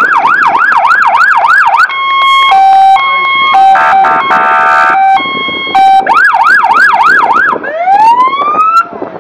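Electronic siren on an olive-drab 8x8 military emergency truck, switching between its tones: a fast yelp of about four sweeps a second, then a two-note hi-lo with a faster pulsing stretch in the middle, then the yelp again. Near the end it gives one rising wail.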